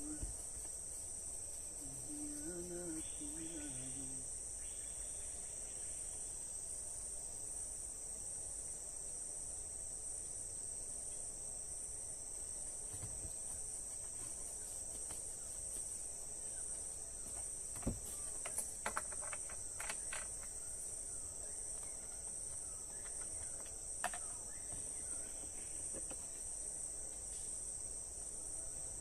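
Steady high-pitched insect chorus, with a few faint clicks and knocks a little past the middle.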